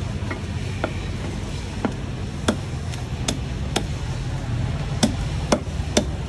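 Cleaver knocking against a whole fish on a thick wooden chopping block while cleaning it, about nine sharp knocks at irregular intervals.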